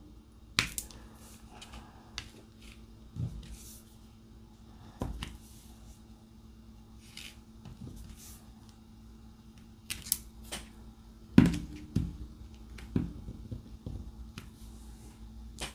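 Diamond-painting drill pen picking resin drills out of a plastic tray and pressing them onto the canvas: scattered light clicks and taps at an irregular pace, one louder knock about two-thirds of the way through, over a faint steady hum.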